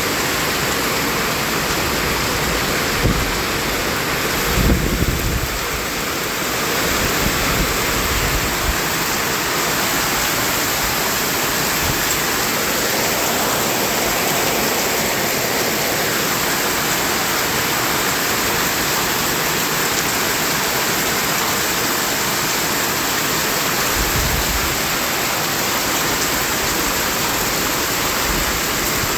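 Continuous white noise for baby sleep: a steady, even hiss much like heavy rain. A few short low rumbles come through a few seconds in and again near the end.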